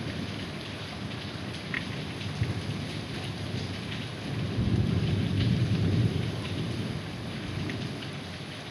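Heavy rain falling steadily, with a low rumble of thunder swelling about halfway through and dying away over a couple of seconds.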